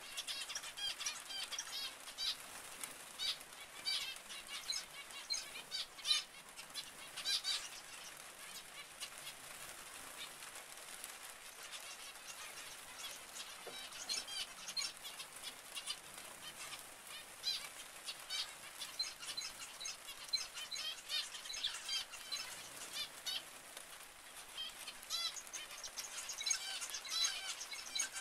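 A flock of zebra finches calling: a busy stream of short, high calls. It thins out for a few seconds in the middle and picks up again near the end.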